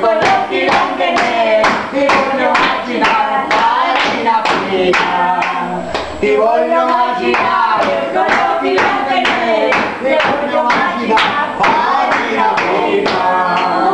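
Several voices singing a folk song in Italian dialect, a man's voice loud among them, over steady hand-clapping of about two to three claps a second.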